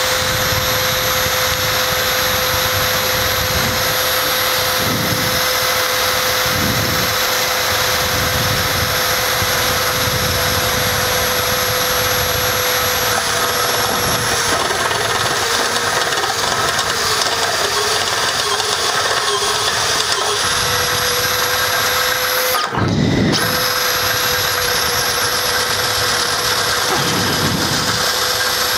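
Makita HP001G 40V cordless hammer drill running steadily under load, drilling a 7/8-inch hole into hard concrete. The drill stops for a moment about two thirds of the way through, then runs on.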